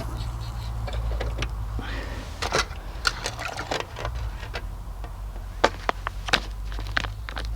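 Scattered sharp clicks and knocks of utensils and cookware being handled while food is dished up, the loudest few near the end, over a steady low rumble of wind on the microphone.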